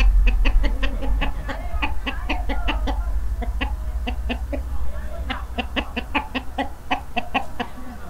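Several domestic hens clucking, short calls coming quickly and overlapping. A low rumble underneath fades out within the first second or so.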